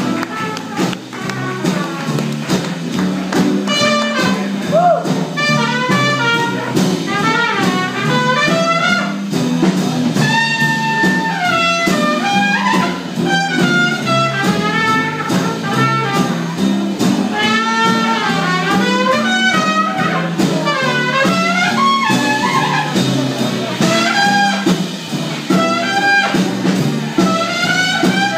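Traditional New Orleans jazz band playing an instrumental chorus: a trumpet carries the lead melody over a rhythm section of archtop guitar and upright bass.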